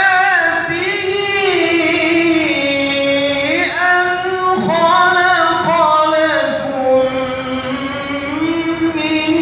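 A male qori reciting the Qur'an in melodic tilawah style into a microphone, one voice holding long, drawn-out notes with wavering ornaments.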